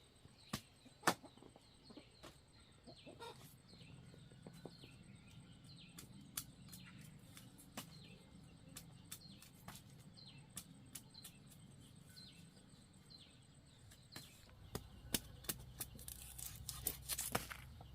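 Chickens clucking, with many short high, falling peeps through most of the stretch and scattered sharp clicks that grow more frequent near the end.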